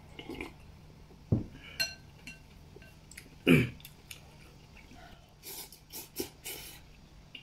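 A person eating noodles at a table. First a sip from a bowl, then a ceramic bowl clinking, with two loud low thumps. Near the end comes a run of short noodle slurps.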